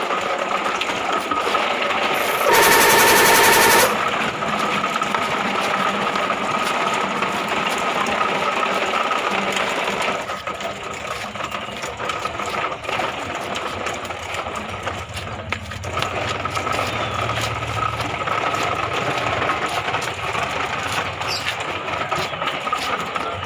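Plastic toy truck wheels rattling and clattering over brick paving as the loaded truck is pulled along. About two seconds in, a loud, even buzzing tone sounds for about a second and a half.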